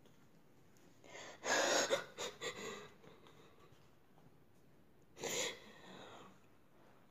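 A woman's breathy gasps and exhalations. The heaviest comes about a second and a half in, with two or three short breaths after it, and another comes about five seconds in.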